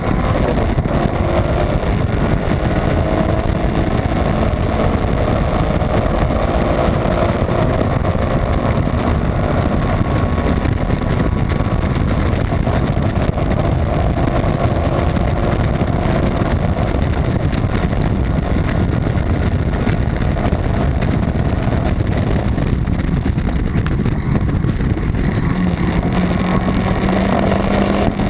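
Honda Civic's B18 non-VTEC four-cylinder race engine running hard at speed, under heavy wind and road noise. The engine note eases about 22 seconds in, then climbs again near the end.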